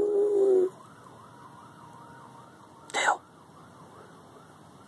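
A long held vocal 'howl' note ends under a second in. After it, a distant emergency-vehicle siren wails faintly, rising and falling about twice a second.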